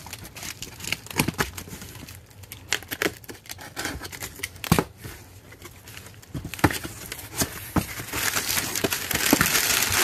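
Cardboard box being opened by hand: scattered clicks, scrapes and tearing as taped cardboard flaps are pulled apart. Near the end, crumpled packing paper inside crinkles more loudly as it is lifted out.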